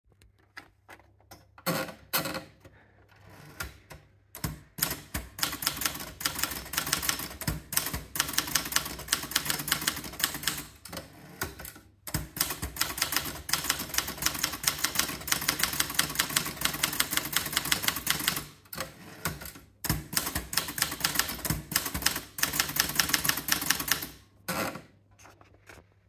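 Erika model 30 manual portable typewriter being typed on: a few separate keystrokes at first, then long, fast runs of key clacks with two brief pauses.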